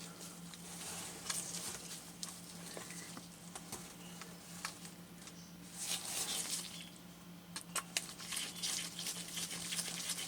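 Small screws being picked up and started by hand with a small Phillips screwdriver into an Icom ID-5100A display housing: faint scattered clicks and brief scraping, with a steady low hum underneath.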